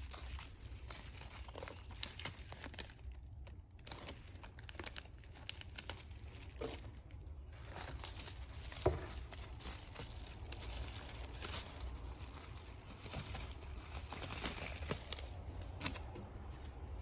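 Packaging being crinkled and torn open by hand while unwrapping a parcel of stationery, in irregular rustles and small clicks, over a low steady hum.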